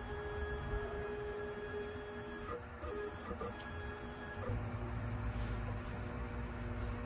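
Stepper motors of an Ultimate Bee 1515 CNC router jogging the spindle carriage along the gantry, a steady motor whine. It breaks off about two and a half seconds in and comes back at a lower pitch about two seconds later.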